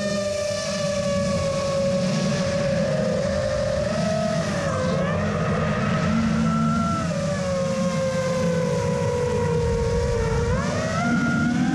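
FPV racing quadcopter's motors and propellers whining, the pitch wavering with throttle and climbing sharply near the end, over a low rumble of wind and prop wash.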